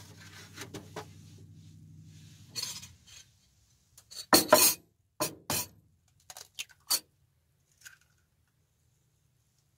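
A ceramic bowl and metal spoon knocking and clinking on a wooden shelf, with the loudest cluster of knocks about four and a half seconds in, followed by lighter taps and clinks as eggs are cracked into the bowl. A low hum fades out about three seconds in.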